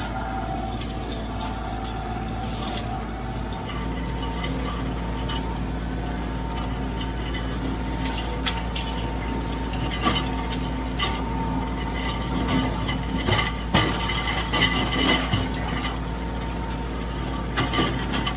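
Kioti CK3510SE tractor's three-cylinder diesel running steadily under load while it drives a flail mower. Scattered sharp clicks and knocks join in from about eight seconds in.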